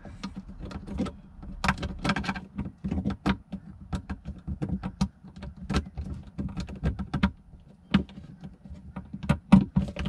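Irregular plastic clicks and taps as a dimmer switch's plastic plate is pressed and snapped by hand into its cut-out in a wall panel, over a steady low hum.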